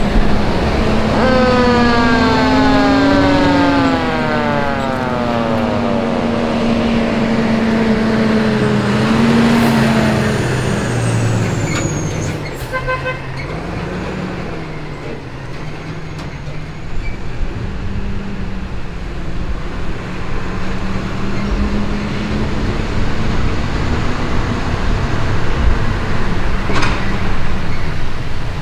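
Fire engine's siren winding down in one long falling wail over its first several seconds, over the steady drone of the truck's engine, which keeps running as the truck creeps along.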